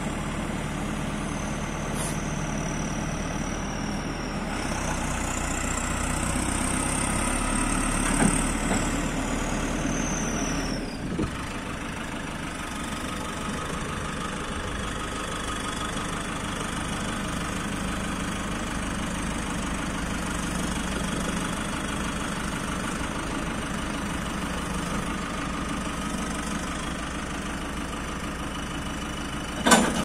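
JCB 4CX backhoe loader's four-cylinder diesel engine idling steadily. A faint high whine slides up and down during the first ten seconds, and a short sharp knock comes at the very end.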